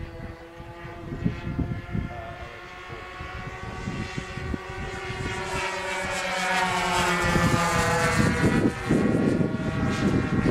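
Two OS 46 nitro glow engines of a Seagull Dual Ace twin-engine RC model plane buzzing in flight at slightly different pitches. They grow louder as the plane comes close, and the pitch bends and drops as it passes. Wind buffets the microphone in the last couple of seconds.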